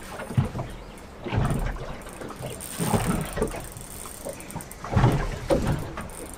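Small waves slapping against the hull of a small aluminium boat, in irregular splashes every second or two.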